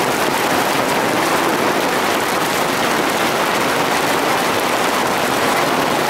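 Hail and heavy rain pelting down: a steady, dense hiss made of countless small hits.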